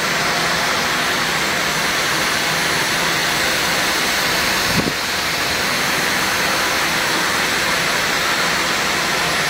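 Dyson V15 cordless stick vacuum running steadily: an even rushing airflow noise with a faint high motor whine. There is a brief low knock about halfway through.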